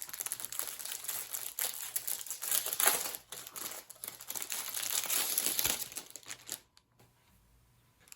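Packaging crinkling and rustling as it is handled and unwrapped, with sharper crackles mixed in. It stops about seven seconds in.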